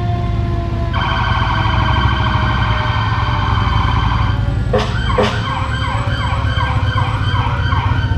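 Sheriff's patrol car's electronic siren cycling through its tones: a steady warbling tone from about a second in, two short sharp blasts about halfway through, then a fast repeating yelp. A steady low rumble runs underneath.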